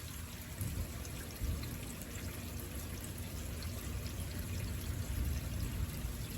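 Heavy thunderstorm rain falling steadily: a continuous hiss with many small drop impacts, over a low rumble.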